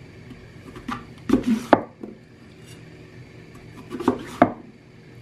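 SYOKAMI 10-inch butcher knife cutting down through peeled apples onto a wooden cutting board. There are two cuts, about a second and a half in and about four seconds in, each a short slice ending in sharp knocks of the blade on the board.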